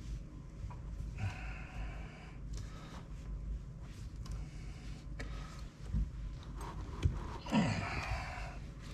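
Hand rivet-nut setting tool being worked: light clicks and scrapes of the tool, with a man's heavy breaths and a strained grunt near the end as he squeezes the stiff handle to set the insert.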